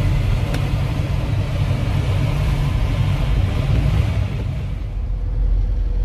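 Steady rush of airflow and rumble inside a glider cockpit in flight. About four to five seconds in, this gives way to a duller, deeper vehicle rumble with little hiss, from a car driving along a paved airfield track.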